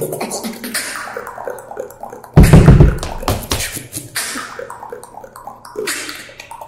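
Beatboxing: a dense run of mouth clicks, snares and hissing textures, with a very loud deep vocal bass hit about two and a half seconds in, right after the announced drop.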